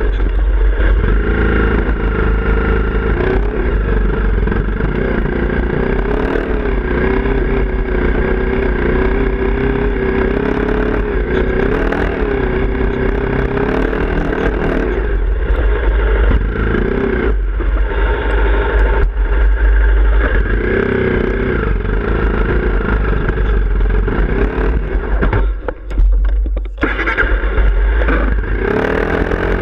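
Honda CRF250L's single-cylinder four-stroke engine running as the dirt bike is ridden along a rough trail, its pitch rising and falling with the throttle, with knocks and rattles from the ground. About 26 seconds in the engine note drops away briefly, then picks up again.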